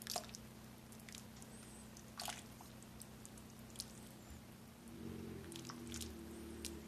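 A ladle stirring thick soup in a crock pot: faint wet squishes and a few sharp clicks of the ladle against the pot, over a steady low hum that gets louder about five seconds in.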